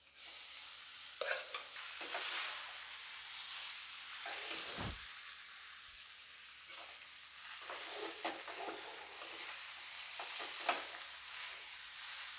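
Tempering sizzling in oil in a kadai as leftover tamarind rice is added and stirred through with a steel spoon, the spoon scraping the pan in short strokes over a steady sizzle. A low thud comes about five seconds in.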